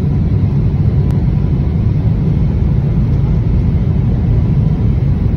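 Steady low rumble of engine and airflow noise inside the cabin of a Boeing 777-300ER airliner descending on approach to land.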